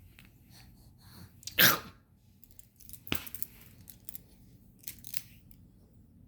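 A child's single loud, sudden burst of breath, a sneeze or cough, about one and a half seconds in. A sharp click and a few smaller bursts follow around three and five seconds.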